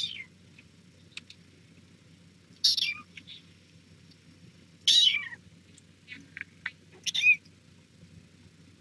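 Young kittens mewing in short, high-pitched squeaks, some falling in pitch: four louder ones a couple of seconds apart, with a few fainter ones between the last two.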